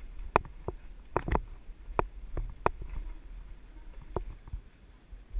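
Mountain bike rattling down a rough dirt trail: irregular sharp clacks and knocks as the bike jolts over roots and stones, over a steady low rumble.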